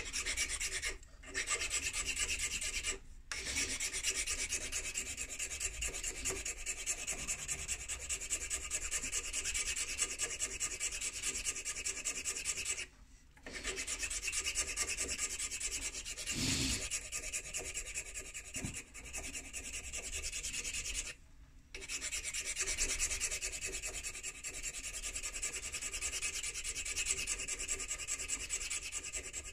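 Hand file rasping on a tobacco-pipe stem in rapid back-and-forth strokes, stopping briefly three or four times. There is one brief knock about halfway through.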